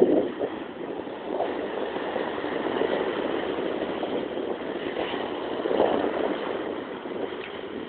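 Small sea waves breaking and washing up a sandy beach in a steady rush, swelling near the start and again about six seconds in, with wind on the microphone.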